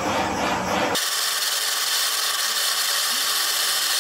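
Handheld gas torch burning with a steady hiss as it heats a chainsaw crankcase's bearing pocket for a heat-fit bearing install. About a second in, the hiss abruptly turns thinner and higher.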